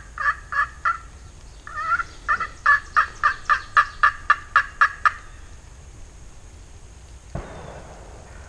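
A wild turkey yelping: a run of short, evenly spaced notes, about four, then after a short pause about a dozen more. A single dull thump follows near the end.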